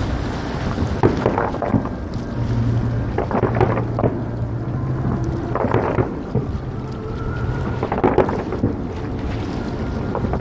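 Aerial firework shells bursting overhead: a run of about four booms, each with a short crackle, coming every two to three seconds.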